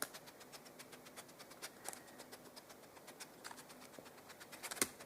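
Faint, irregular small clicks and ticks over a light scratchy rustle, with a sharper click near the end.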